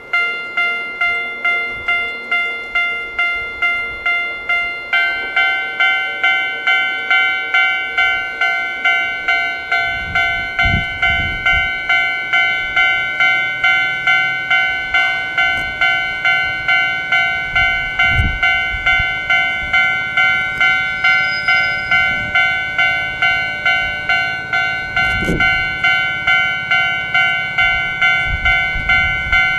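Old-style Japanese level-crossing alarm (Kita-Oji type electronic bell) starting up and ringing in a steady rapid rhythm. It rings on a single tone at first, then about five seconds in a second tone joins and it sounds as an eerie, dissonant two-tone chime. The single-tone phase is a fault of this ageing alarm, which the uploader notes rings single-tone for ever longer. Wind gusts buffet the microphone now and then.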